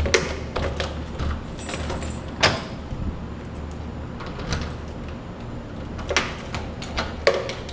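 Keys and the lock of an apartment front door clicking and knocking as the door is unlocked, a few scattered sharp clicks with the loudest about two and a half seconds in, over a low steady hum.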